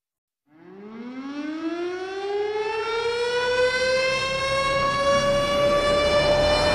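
Air-raid-style siren winding up: a single wailing tone that starts about half a second in, rises in pitch quickly at first and then levels off, growing louder throughout. It is a siren sample in the slideshow's music track.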